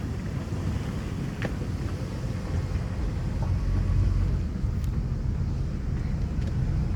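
Wind buffeting the microphone: a steady low rumble, with a faint click about one and a half seconds in.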